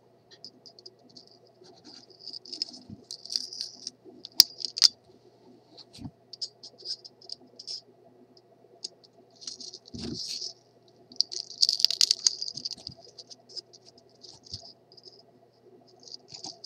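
Thin sheet-metal plate and inner electrodes of a 6BA6 vacuum tube being wrenched apart: irregular scratchy rattling and scraping of metal, with a few sharp clicks and a longer bout of scraping about twelve seconds in.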